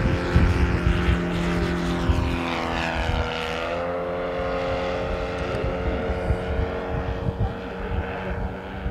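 Saito FG-41TS 41 cc four-stroke flat-twin engine driving the propeller of a radio-controlled model plane in flight, running at a steady note. The pitch shifts slightly about four seconds in.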